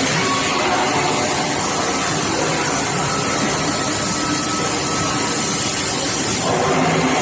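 Steady industrial machinery noise from a steel pipe induction hardening and tempering line: a dense, even hiss with a few faint steady tones running through it.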